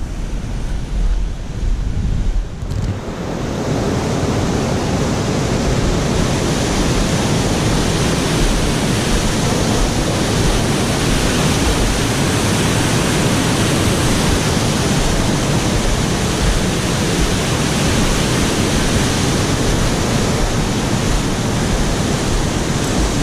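Loud, steady rush of whitewater pouring through a concrete weir, starting about three seconds in after a short stretch of low wind rumble.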